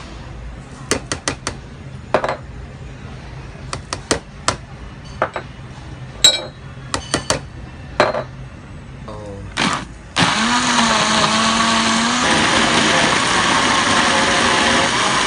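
Scattered clicks and knocks as ingredients and the lid go into a blender jug, then about ten seconds in the blender's motor starts, its pitch rising and settling, and runs steadily, grinding the sambal paste of dry chilies, belacan and tamarind juice.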